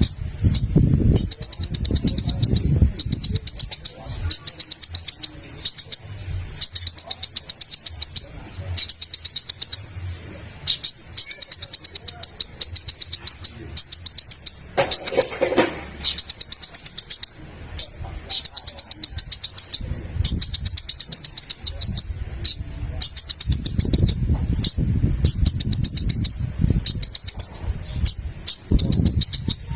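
Crimson sunbird (sogok ontong) singing energetically: rapid, high, twittering trill phrases repeated one after another with short gaps. A low rumbling noise sits underneath at times, strongest near the start and in the last third.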